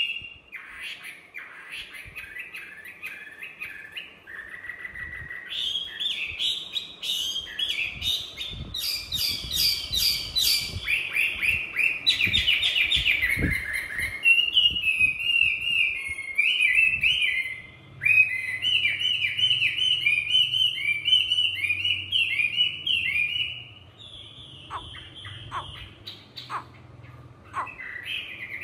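Caged Chinese hwamei (melodious laughingthrush) singing a long, varied song of rapid whistled phrases, repeated notes and fast trills, with a brief pause about seventeen seconds in.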